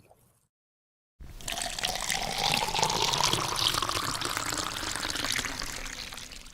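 Water pouring into a container, starting about a second in, with a rising ring in the splashing as the container fills; it fades out near the end.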